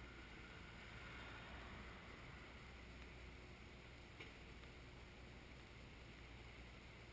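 Near silence: a faint steady hiss with a low hum underneath, and one brief click about four seconds in.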